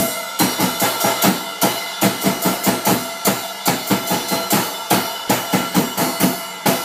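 A small child bashing a Pulse drum kit, bass drum, snare and cymbals, in an even beat of about four hits a second with the cymbals ringing on between hits.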